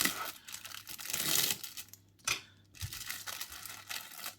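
Plastic packaging crinkling in several rustling bursts as plastic model-kit sprues are handled.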